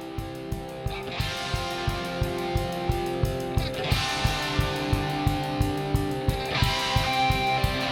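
Outro music: a rock track with guitar over a steady drum beat, building slightly in loudness.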